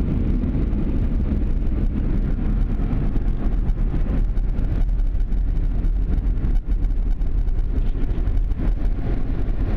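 A 2013 Dodge Charger SRT-8's 6.4-litre HEMI V8 running in a low, steady rumble, heard from inside the cabin as the car drives off at low speed.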